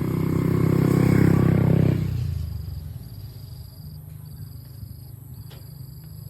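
A motor vehicle engine passing close by, growing louder to a peak about a second in and then fading away within about two seconds, leaving a steady high insect buzz.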